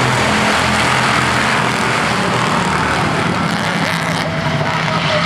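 A pack of street stock race cars running at racing speed around the oval, their engines making a loud, steady drone.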